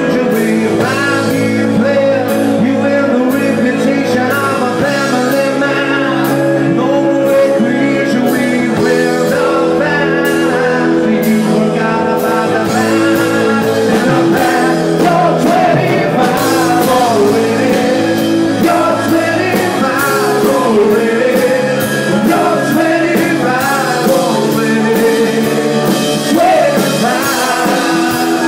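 Live rock band playing: a male singer over electric guitar, bass guitar and drums keeping a steady beat.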